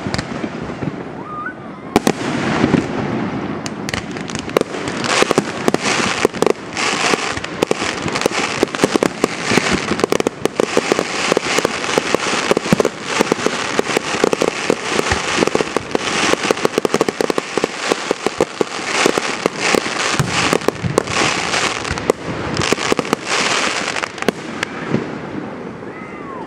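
Fireworks display: aerial shells bursting one after another amid dense, rapid crackling, a near-continuous barrage that thins out near the end.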